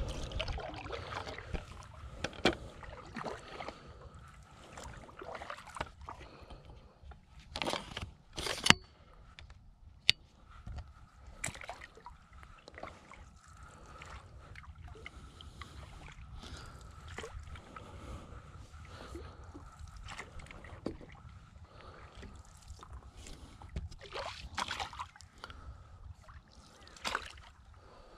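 Stand-up paddleboard paddle strokes: the blade dipping and pulling through calm water with soft splashes and drips, and a few sharp knocks along the way.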